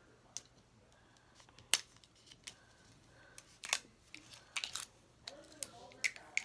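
Small plastic Toy Mini Brands capsule being handled and worked at to open it: a series of irregular sharp plastic clicks and snaps with light rustling, the loudest click a little under two seconds in and a quick cluster of clicks around two thirds of the way through.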